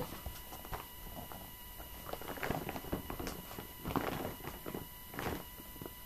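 Paper vacuum cleaner bags being unfolded and handled: faint, intermittent rustling and crinkling with a few light knocks.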